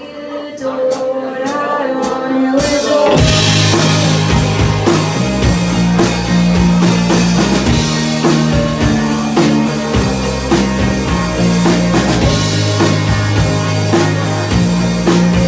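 Live rock band playing electric guitars, bass and drum kit. The opening three seconds are a quieter, sparse passage with a few sharp hits, then the full band comes in loud and keeps going.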